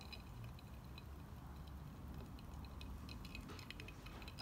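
Faint, irregular small clicks, coming more often near the end.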